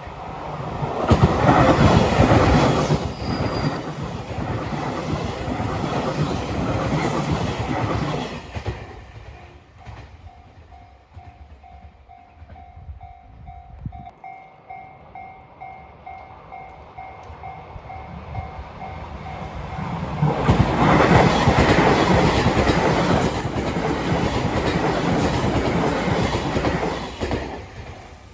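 Train wheels clattering loudly over the rail joints at a level crossing on the JR Kisei Main Line, as a train passes in the first several seconds and another in the last several. Between the passes the crossing's warning bell rings in even, repeating pulses.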